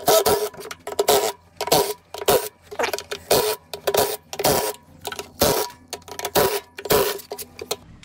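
A run of short clicks and scrapes, about two or three a second, as a cordless impact driver's socket is worked onto and off the 10 mm screws around a plastic washing machine tub.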